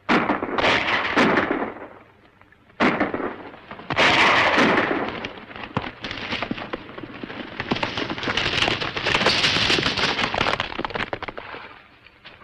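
Horses galloping on a film soundtrack: a dense, rapid patter of hoofbeats in the second half. It is preceded by four loud, noisy bursts in the first five seconds.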